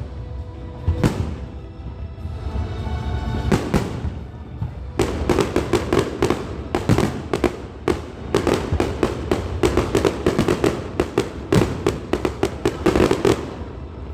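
Fireworks going off: a few separate bangs, then from about five seconds in a rapid barrage of many bangs in quick succession, with music playing underneath.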